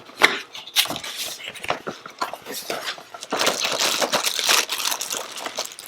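Packaging being handled during an unboxing: scattered clicks and taps, then steady crinkling and rustling from about three seconds in.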